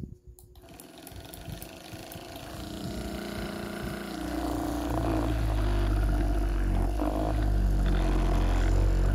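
Handheld percussion massage gun running with a steady mechanical buzz, starting about half a second in and growing louder, with a strong low hum from about halfway as its head is pressed into the sole of a foot.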